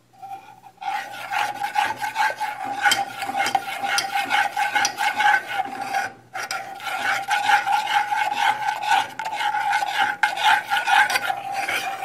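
Metal spoon scraping and stirring melted sugar against the bottom and sides of an aluminium saucepan in a continuous rasping scrape, pausing briefly about six seconds in. The sugar is being caramelised for a syrup and is stirred without stopping so it doesn't burn.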